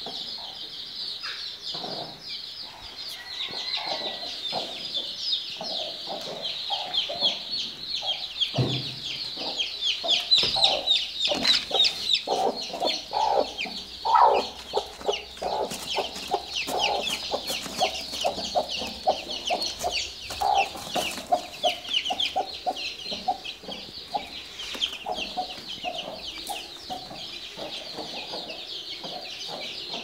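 A brood of chicks peeping constantly in rapid, short, high falling notes, while a hen clucks in a low repeated run. There is a single low thump about nine seconds in.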